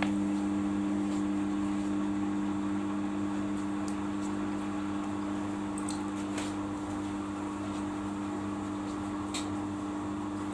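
Samsung ecobubble washing machine running with a steady motor hum, easing off slightly in level, with a few faint ticks.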